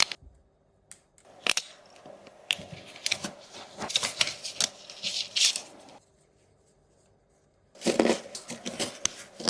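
Irregular clicks, snaps and scraping of hard plastic parts being handled, stopping for about two seconds past the middle before another cluster of clicks and rasps.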